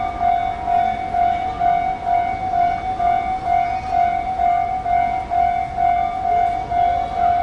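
Japanese railway level-crossing warning bell ringing steadily, a repeating electronic ding at about two strokes a second.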